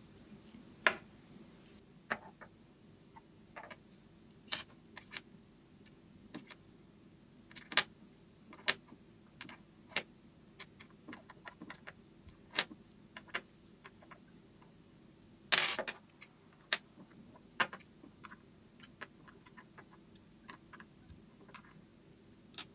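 Irregular clicks and taps of small hard parts being handled and set down during work on a cordless drill, with one longer rattling scrape about two-thirds of the way through.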